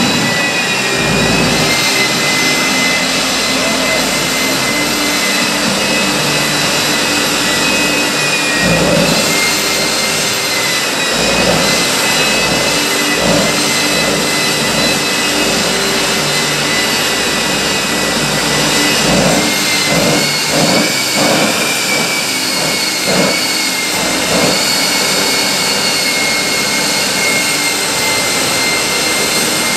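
Jet engine of a jet-powered Kenworth show truck running steadily at low power, with a high turbine whine over a rushing roar. The whine wavers slightly in pitch a few times.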